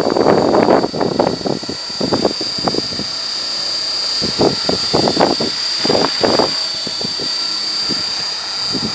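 E-sky Belt-CP electric RC helicopter with wooden rotor blades flying overhead, its motor and rotors giving a steady high whine. Wind buffets the microphone in gusts, heaviest about the first second and again around the middle.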